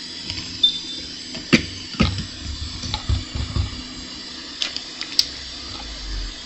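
Steady hiss of moving air from soldering-bench equipment, broken by several sharp clicks of tools against the circuit board.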